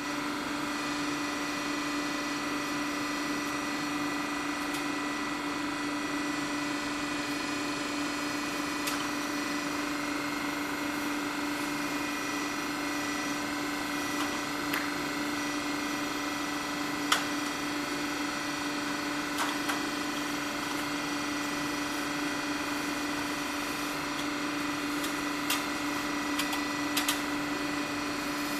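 A machine running steadily: an even hum with one strong low tone and several higher ones, never changing, with a few light clicks and knocks scattered through it, the sharpest a little past halfway.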